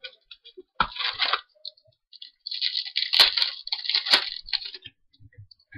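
Foil baseball-card pack wrapper crinkling and being torn open by hand, in two spells of scratchy rustling with a few sharp crackles, after a light knock about a second in.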